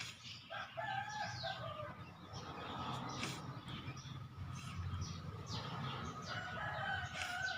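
A rooster crowing twice, about half a second in and again near the end, with small birds chirping in between.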